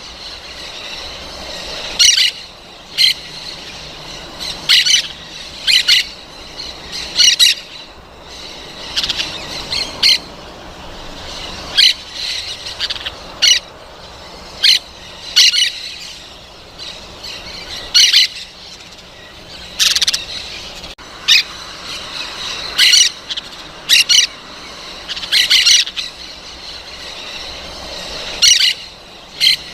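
Parrots squawking: short, harsh, shrill calls repeated irregularly every second or two, over a fainter background of chatter.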